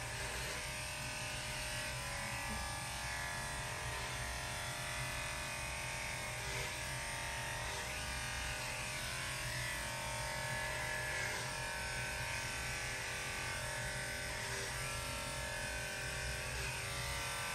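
Electric dog grooming clippers running with a steady buzz, trimming a Shih Tzu's coat.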